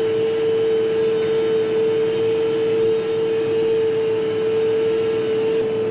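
A steady single-pitched tone that starts suddenly and holds, over the tractor's running engine, while the grain cart's auger is being folded.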